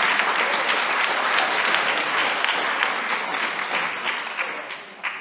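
Applause from many people clapping, thinning out and dying away near the end.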